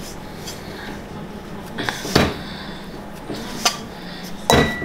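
A fork and hands knocking against a stainless steel mixing bowl as dough is worked by hand: a few sharp clanks, the loudest about two seconds in and near the end, where the steel briefly rings.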